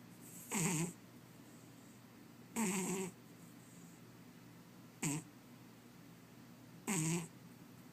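A sleeping cat snoring: four short snores about two seconds apart, each with a wavering pitch and a breathy hiss.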